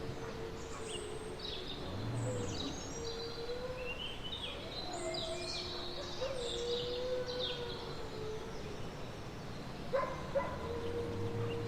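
Forest ambience: wolves howling in long, slightly wavering notes, two at once in places, while small birds chirp and sing over them through the middle. Two short knocks near the end.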